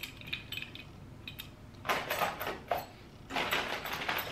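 Small zinc-plated steel fastener parts (lock sliders and bolts) clinking against an aluminium extrusion profile as they are handled, then two short scraping, rustling sounds about two and three and a half seconds in as the parts and profile are moved.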